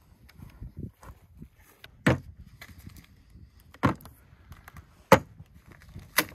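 Four sharp knocks, one to two seconds apart, with faint small clicks and rustles between them; the third knock is the loudest.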